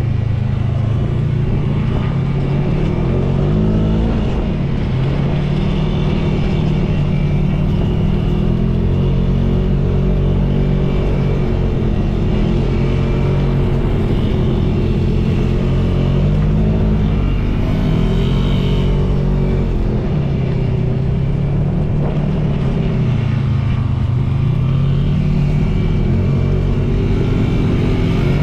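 Side-by-side off-road vehicle's engine running under way on a dirt trail. Its pitch rises and falls several times as the throttle changes.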